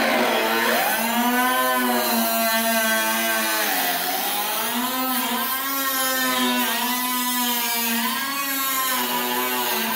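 Small handheld grinder running on sheet metal, its whine sagging in pitch as it is pressed into the work and climbing back as it is eased off, about half a second in and again around four seconds in.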